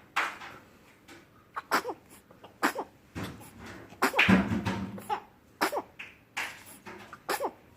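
A baby sneezing again and again: a quick string of short, sharp sneezes, some in close pairs, with a longer, louder burst about four seconds in.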